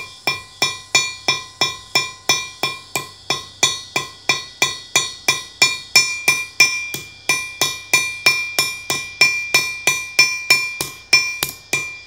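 Ball-peen hammer lightly tapping rivets through a brass belt buckle and leather strap against a steel stake, flaring the rivet heads over (peening). An even run of about three taps a second, each with a short metallic ring.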